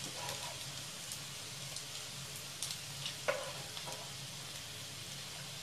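Bread-and-vegetable manchurian balls deep-frying in hot oil, a steady sizzle. A few short metallic knocks come from the spoon against the pan and strainer, about halfway through.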